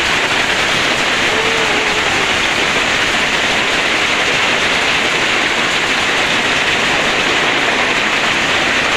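Heavy rain falling on a corrugated tin roof and the ground, with gusting wind in the trees: a loud, steady hiss.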